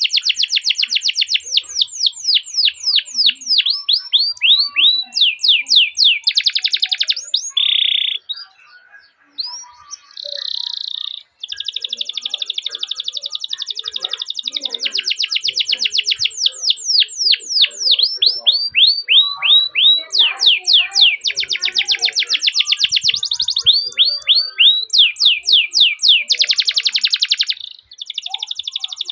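Canary singing long rolling trills of rapid, repeated down-sweeping chirps ('cuit cuit'), broken by buzzy trilled phrases. It pauses for a few seconds about eight seconds in, then resumes.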